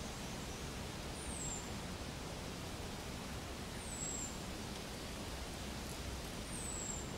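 Steady outdoor ambient hiss, with a short, high, thin call sliding down in pitch, heard three times about two and a half seconds apart.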